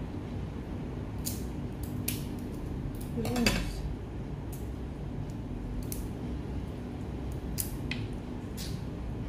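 Scattered sharp clicks and cracks of steamed mud crab shell being snapped and picked apart by hand, with small clinks of dishes. About three and a half seconds in comes a brief wavering pitched sound, the loudest moment.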